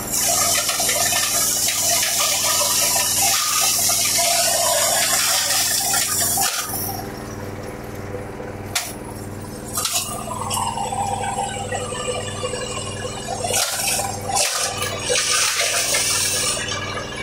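JF 50 Maxxium forage chopper running steadily while chopping green corn plants for silage. A loud rushing hiss of chopped forage blows from the discharge spout for the first six seconds or so and again near the end, over the machine's steady hum, with a few sharp knocks in between.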